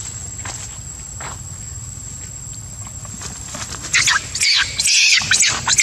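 Two young monkeys scuffling in low leafy plants: faint rustles and steps at first, then about four seconds in a sudden burst of loud, rapid, scratchy sounds as they tussle.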